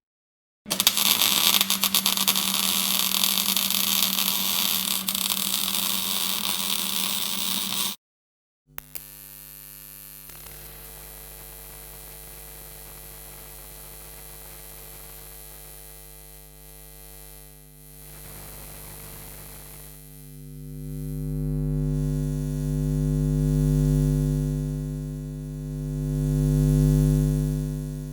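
Electrical crackling buzz, loud and dense, for about seven seconds. It cuts off, and after a short gap a steady electrical mains hum takes over, low and buzzing with overtones, swelling and ebbing in slow waves toward the end.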